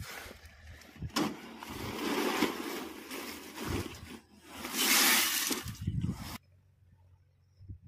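Dried pea seed pouring from a sack into a metal seed-drill hopper, a rattling hiss that swells and eases, loudest about five seconds in, and stops suddenly about six and a half seconds in.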